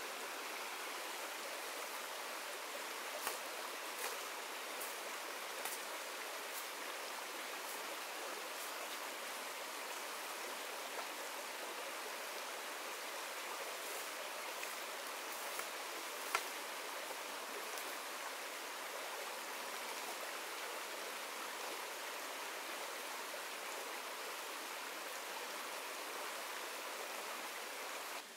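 Shallow rocky stream running steadily over stones. A few sharp clicks are scattered through it, the loudest about sixteen seconds in.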